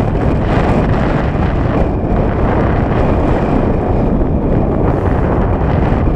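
Wind buffeting the microphone: a loud, steady low rumble with no let-up.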